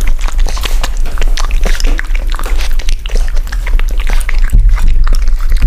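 A puppy lapping and licking wet food off a ceramic plate close to a microphone: a quick run of wet smacking, slurping clicks, over a steady low hum.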